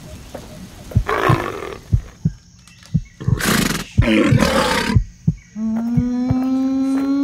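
Indominus rex roar sound effects: a harsh roar about a second in, then two more a few seconds later, the middle one the loudest. Near the end a long, steady-pitched cry begins and rises slightly.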